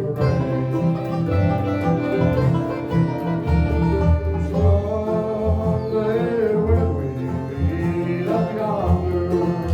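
Bluegrass band playing a slow country song: fiddle carrying a sliding melody over banjo and guitar picking and a steady bass line.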